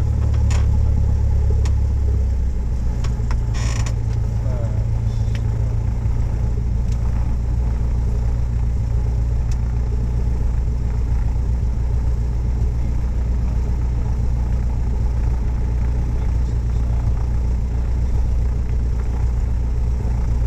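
Single-engine light aircraft's engine and propeller heard from inside the cabin as a steady low drone that steps down slightly about two seconds in, with a few light clicks and creaks from the cabin and a brief rattle a few seconds in.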